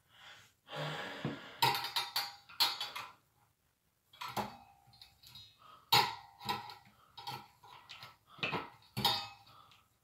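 Screwdriver clinking and scraping against the metal canopy and mounting screws of a ceiling fan: a string of irregular short metallic clicks and knocks, a few with a brief ring.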